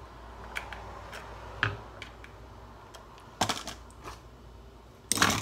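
Scattered small metallic clicks and rattles of screwdriver bits being handled and tried on a screw head, four or so separate clatters, the loudest near the end.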